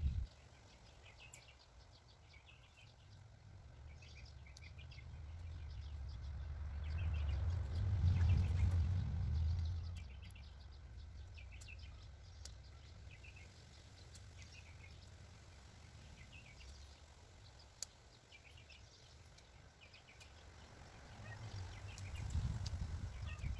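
Outdoor garden ambience: birds chirping on and off, with a low rumble that swells and fades again around the middle.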